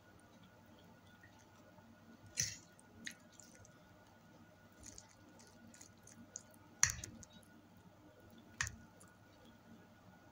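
Close-up eating of spaghetti: quiet chewing and squishing of the noodles, broken by a few short sharp clicks, the loudest about two-thirds of the way through.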